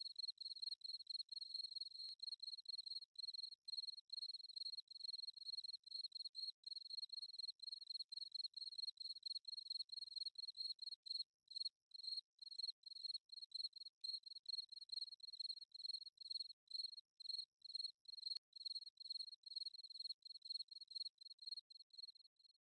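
Cricket chirping: a faint, high trill pulsing about three times a second.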